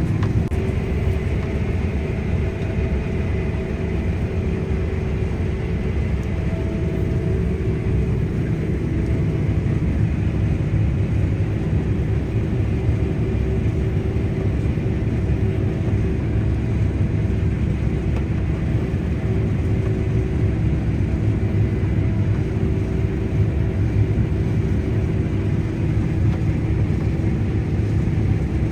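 Case IH Axial-Flow 9250 combine harvester running steadily while harvesting wheat: a loud, even low rumble with a few steady whining tones over it.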